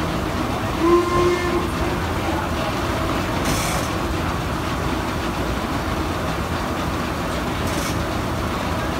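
Steam-powered sawmill machinery running: a steady rumble with a rhythmic clatter, a brief pitched tone about a second in, and two short hisses, one about three and a half seconds in and one near the end.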